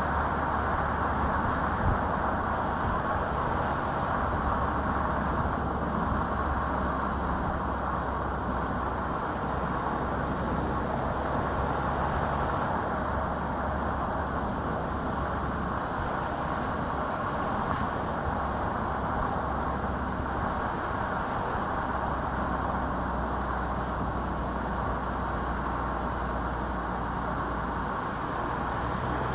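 A car driving along a road: a steady mix of tyre-on-road noise and engine hum, with a small knock about two seconds in.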